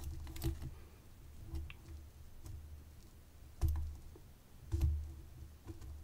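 A hook pick and tension wrench working in the pin-tumbler core of a vintage Sargent padlock: faint, scattered light metal clicks and taps as the pick probes the pins, with a few soft bumps of handling.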